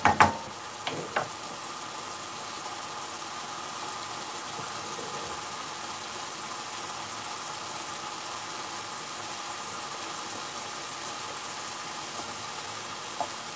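Curry sauce bubbling and sizzling steadily in a metal frying pan over a medium gas flame, reducing after a ladle of base gravy with the oil starting to separate. A few knocks of a wooden spatula against the pan in the first second.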